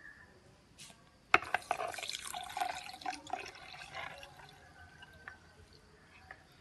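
Milk poured from a ceramic mug into a stainless-steel mixer-grinder jar, splashing onto avocado pieces. It begins with a sharp knock about a second in and splashes for about three seconds, then dies down to a faint trickle.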